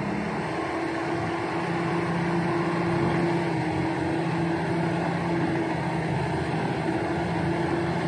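Komatsu crawler bulldozer's diesel engine running steadily under load as the machine works through deep mud, with a steady engine drone.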